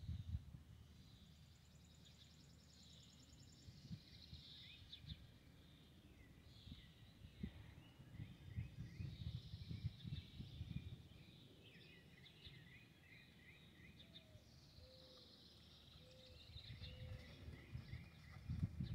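Several songbirds singing and chirping over a quiet outdoor background, with a short run of three or four lower, even notes about three-quarters of the way in. Irregular low rumbles and thumps sit underneath.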